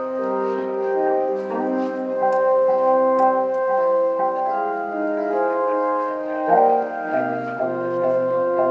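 Instrumental music: held chords that change every second or so.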